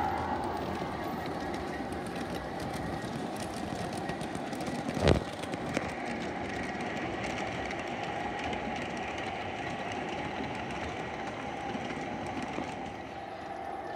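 Large-scale garden-railway model freight train rolling past on its track, a steady clatter of wheels on rail, with one sharp knock about five seconds in.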